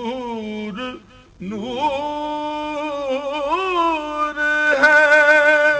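A man singing an Urdu naat (devotional poem in praise of the Prophet) solo, with no instruments heard. He holds long, ornamented notes that waver and glide in pitch, pauses briefly about a second in, and sings louder near the end.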